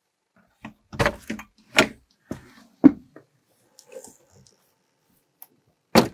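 Camper door being unlatched and opened: a series of latch clicks and loud clunks, the strongest about one, two and three seconds in, with another clunk near the end.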